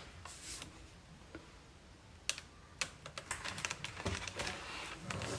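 Light clicks and taps from a new battery-powered vacuum cleaner and its parts being handled: sparse at first, then coming quickly from about halfway through.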